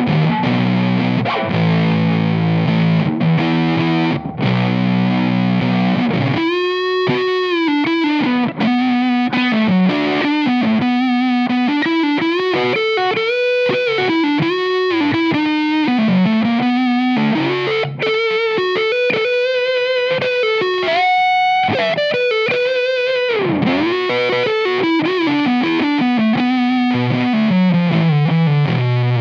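Fender Stratocaster played through a Bennett Custom Audio Fuzz Academy germanium fuzz pedal into a 1966 Fender Bandmaster amp, with a fuzzy, distorted tone. It opens with a few seconds of held chords. From about six seconds in it plays a single-note lead line with string bends and vibrato, and near the end a falling run leads back into chords.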